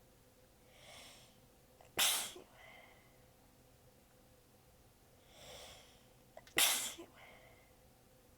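A person sneezing twice, a few seconds apart, each sneeze preceded by a soft audible in-breath. The sneezes are short and partly held back by a tired sneezer.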